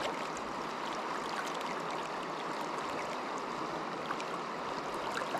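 Flowing river water running steadily past close by, a fast, shallow current rippling over a salmon pool, with faint small ticks.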